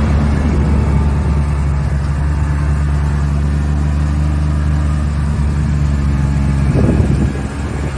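Truck engine idling steadily, starting and cutting off abruptly, briefly louder near the end.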